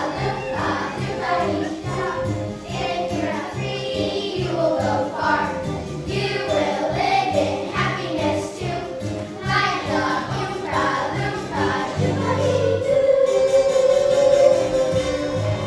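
A chorus of stage performers singing together over an instrumental accompaniment with a steady bass beat, rising to a long held note in the last few seconds.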